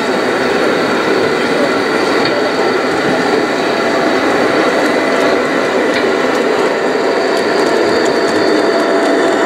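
Gauge 1 (1:32) model train running on metal track: a steady rumble of wheels and electric motor hum, growing slightly louder near the end as the locomotive and its coaches pass close.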